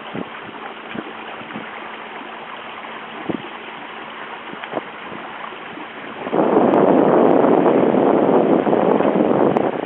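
Water rushing and lapping along the hull of a sailing proa under way, with small slaps. About six seconds in, a much louder steady rushing noise sets in and lasts to the end.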